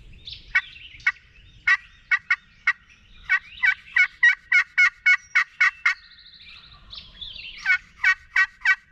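Turkey calling: a long run of sharp yelping notes, a few scattered at first, then about four a second for several seconds, a short pause, and another fast run near the end.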